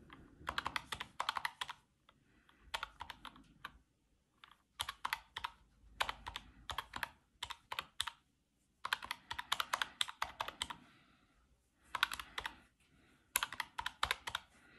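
Fingers tapping numbers into a desktop calculator: quick runs of plastic key clicks separated by short pauses.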